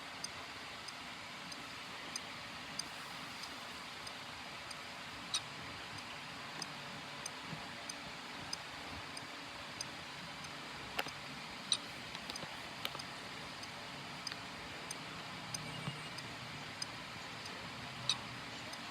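Sharp, irregular clicks, a few every couple of seconds, over a steady faint hiss.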